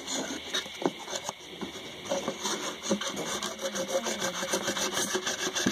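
A thin blade sawing back and forth through cardboard, with rapid scraping strokes that come faster in the second half. The cut is ragged and tearing rather than clean.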